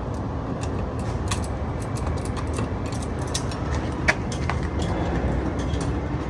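Irregular small metallic clicks and taps of hand tools working a bolt out of a door lock bracket, with one sharper click about four seconds in, over a steady low rumble.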